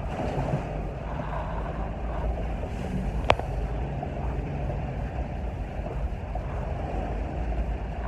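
A vehicle driving through deep floodwater: a steady rumble of engine and churning, splashing water, with one sharp click a little over three seconds in.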